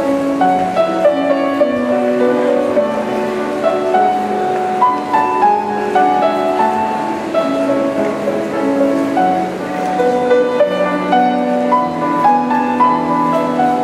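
Grand piano played solo: a children's piano piece, a steady flow of melody notes over held lower accompanying notes.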